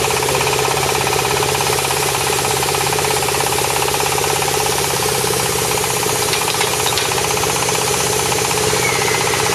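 Hydraulic guardrail-post drilling machine drilling into the ground: its engine runs steadily under a fast, even hammering from the drill.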